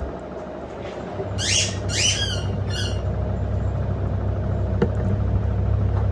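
LG F1222TD front-loading washing machine running with a steady low hum. The hum drops away for about a second at the start and then picks up again. About 1.5 to 3 seconds in there are three short, high, rising squawks.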